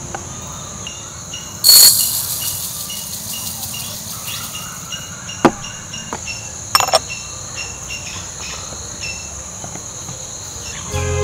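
Insects chirping in a steady rhythm of short repeated chirps over a constant high drone. About two seconds in comes one loud, bright clink with a ringing tail, like glass knocking on glass, and a few sharp light knocks follow between five and seven seconds.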